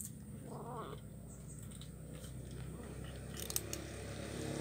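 Kitten chewing fish bones, with a few sharp crunches in the second half.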